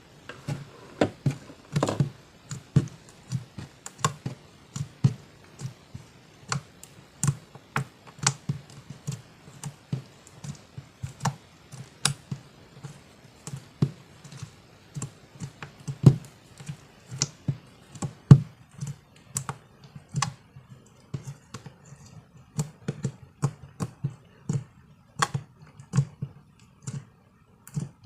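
Slime being kneaded and pressed by hand, giving irregular sticky clicks and pops, one to three a second.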